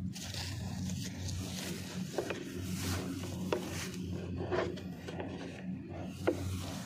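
Wooden carabao-drawn cart loaded with rice sacks rubbing and creaking as it is hauled over harvested rice stubble, with a few short creaks through the middle over a steady low hum.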